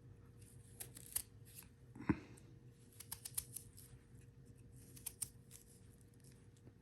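Fresh ginger root being cut into small pieces: scattered short, crisp cutting clicks, with one dull knock about two seconds in.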